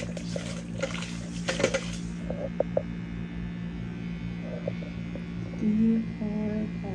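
Electric makeup brush cleaner's small motor whirring steadily as it spins a wet brush in its glass jar. For the first two seconds the spinning bristles spatter water against the jar, then the brush spins dry with only the motor's hum. A short pitched hum comes near the end.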